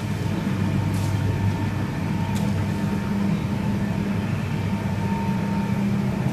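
Electric sliding gate opener running steadily with a low hum as it drives the metal gate open, the gate rolling along its track.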